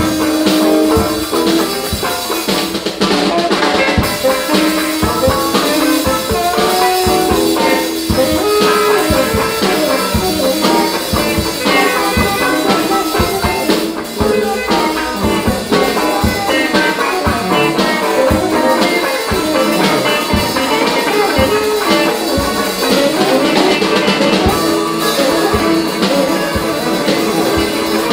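Jazz band playing: drums keep a busy beat under a melody of held notes.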